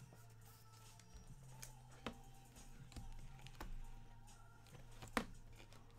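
Faint, scattered clicks and taps, four or five in all, over a low steady hum.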